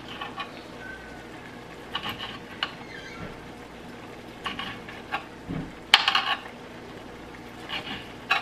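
Knife slicing a smoked beef sausage into rounds on a cutting board: irregular knocks as the blade goes through and hits the board, a quick run of strokes about six seconds in being the loudest.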